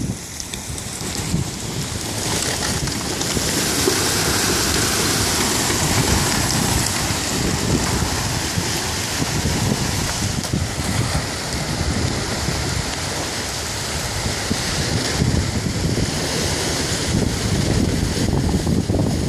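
Broken river ice floes moving downstream, grinding and scraping against each other and the rock riprap with a steady hiss. Wind buffets the microphone.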